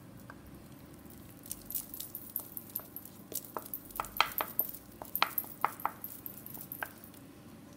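Wooden spoon scraping Nutella out of a small ceramic bowl into a bowl of flour, with about a dozen irregular light taps and clicks of spoon against bowl.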